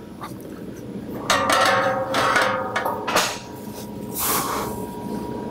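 Stainless steel handrail tube knocking and scraping against a steel spiral staircase as it is fitted, with a metallic ringing about a second in that lasts a second and a half, and a brief scrape near the end.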